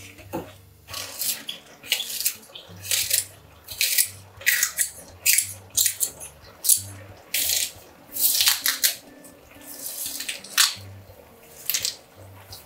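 Monkfish and bean sprouts sizzling in a hot frying pan, hissing in short bursts about once a second as they are stirred, over quiet background music.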